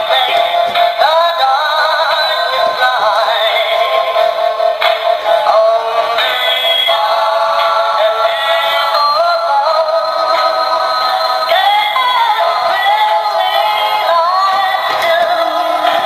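Animatronic plush bulldog toy singing a song through its built-in speaker: a synthetic singing voice with backing music, thin and tinny with no low end.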